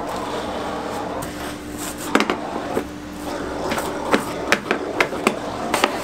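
Workshop vacuum running steadily with a faint hum while its hose nozzle is drawn over the dusty fine-filter mat of a workshop air cleaner. From about two seconds in, several sharp knocks come as the nozzle strikes the filter's metal frame.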